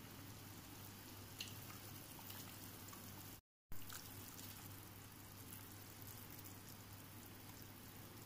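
Faint, steady bubbling of a potato-and-tomato broth at the boil in a steel kadai, under a low hum. The sound cuts out completely for a moment about three and a half seconds in.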